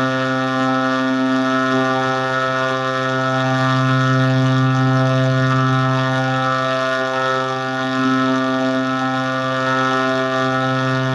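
A steady low droning tone with many overtones, held at one pitch with slight swells in loudness.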